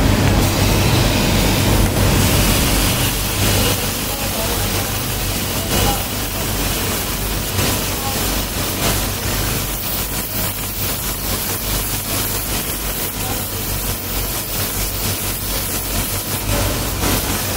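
Motor-driven belt grinder running, with a steel knife blade pressed against its abrasive belt: a steady hum under a grinding hiss.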